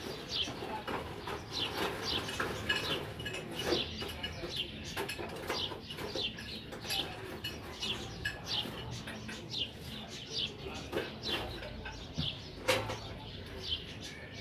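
Small birds chirping over and over, many short high chirps, mixed with scattered clinks and knocks and one sharper knock near the end.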